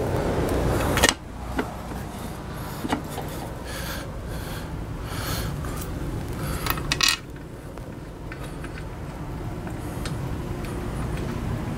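Scrapes, rubs and light knocks of an outboard motor's lower unit being lifted and worked into place against the midsection while its drive shaft splines are lined up. A louder rustling scrape in the first second, scattered clicks and short scrapes until about seven seconds in, over a steady low hum.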